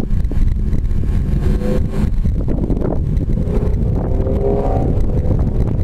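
Steady low rumble of wind on the microphone, with a car engine note rising in pitch in the background twice: briefly about a second and a half in, and again from about three to five seconds in.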